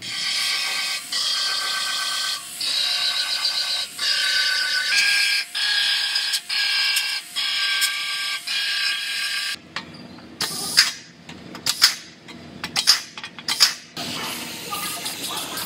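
Aerosol spray can sprayed in a string of short bursts, each a whistling hiss about a second long. Then a few seconds of scattered clicks and knocks, and a steadier spray of aerosol primer near the end.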